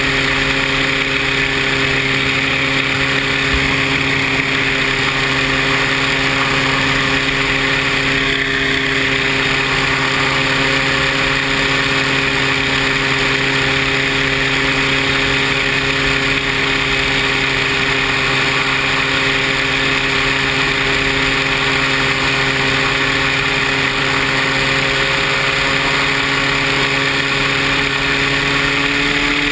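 Paramotor engine running at a steady throttle, an even engine note over a constant hiss. The pitch rises slightly near the end.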